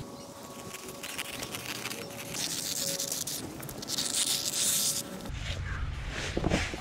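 Scissors cutting through a large sheet of heavy fabric: a run of rapid snipping, with two louder stretches of cutting in the middle. After about five seconds the background changes to a low rumble, with a few rustles near the end.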